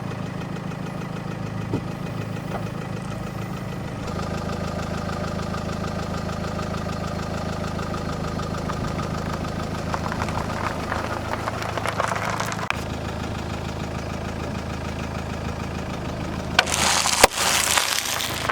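Car engine idling steadily throughout. Near the end comes a loud burst of crunching and cracking with one sharp snap as an object is crushed under the tyre.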